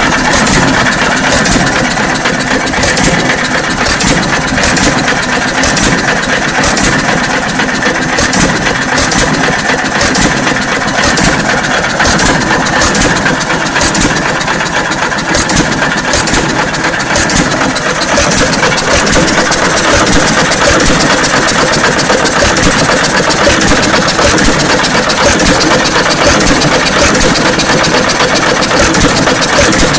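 John Deere 1 1/2 hp Type E hit-and-miss engine running on a battery and low-tension coil ignition, with no magneto. It beats out sharp regular cracks, about one and a half to two a second, over a steady mechanical clatter.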